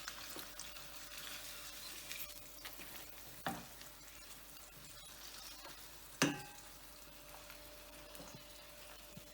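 Egg frying in vegetable oil in a frying pan: a quiet, steady sizzle. Two sharp knocks cut through it, one about a third of the way in and a louder one about two thirds in.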